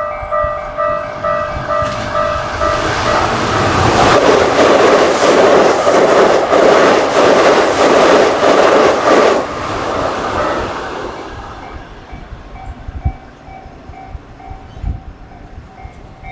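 Japanese level-crossing warning bells ringing in a steady repeating two-tone clang as a Keikyu Main Line train passes at speed, with loud wheel clatter over the rail joints for about six seconds. The train noise fades away after about ten seconds, leaving the bells ringing faintly.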